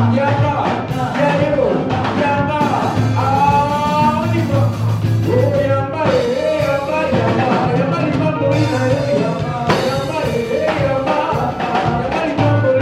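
Upbeat praise-and-worship music: a band with a steady bass line and drums playing a fast rhythm under a singing melody line.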